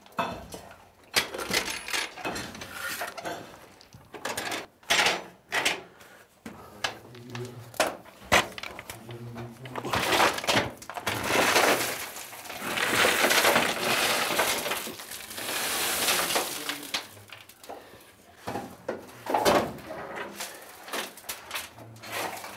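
Chunks of rock ore knocking and clattering against a metal ore bucket, with a longer rushing pour of rock and grit in the middle.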